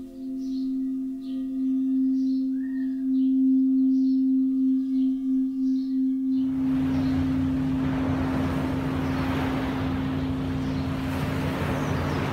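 Crystal singing bowl sustaining one steady ringing tone, with faint high chirps repeating about once a second. About six seconds in, a loud rushing wash of noise swells in, with lower steady tones beneath the bowl.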